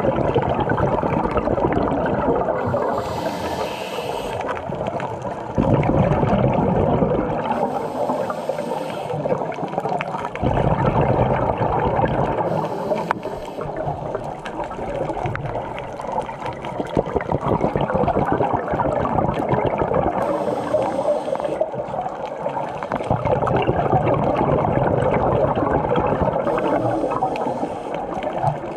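A scuba diver's breathing through a regulator, heard underwater: a short hissing inhale about every five to seven seconds, each followed by a longer gurgle of exhaled bubbles, five breaths in all.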